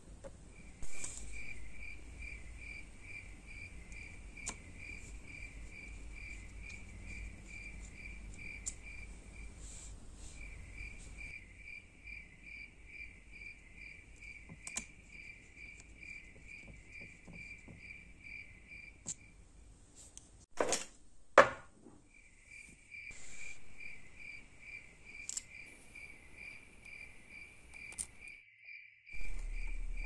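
A cricket chirping steadily, about four short chirps a second, pausing briefly twice. Occasional sharp clicks and knocks of small tools and brass lighter parts being handled, the loudest two in quick succession about two-thirds of the way through.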